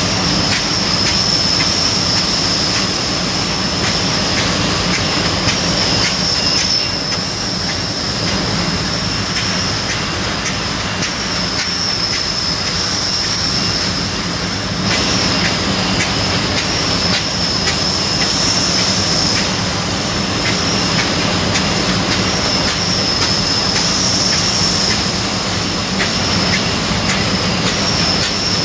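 Individual-section (IS) glass bottle-forming machine running, with a steady loud hiss, a persistent high whistle that wavers slightly, a low hum, and frequent clicks and clacks from its section mechanisms. The din eases a little for several seconds partway through, then comes back up.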